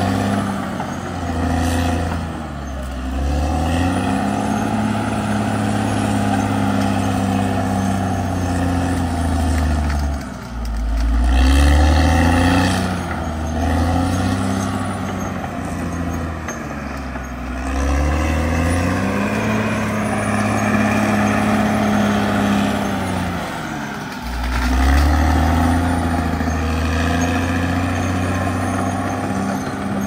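Caterpillar D6R XL bulldozer's diesel engine running hard as the dozer pushes soil. The engine note falls and climbs back about four times as the blade takes up and sheds load.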